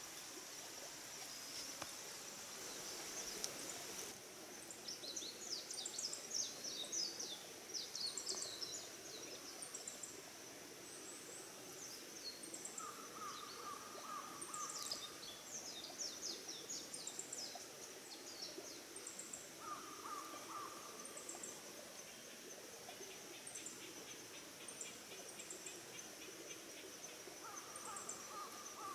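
Wild birds singing in bursts of short, rapid high chirps over a steady high-pitched insect drone. A lower call sounds three times, about a third of the way in, around two-thirds in, and near the end.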